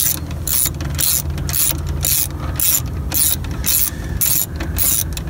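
Socket ratchet wrench on a long extension clicking in quick repeated bursts, about three a second, as the handle is swung back and forth to back out a bolt.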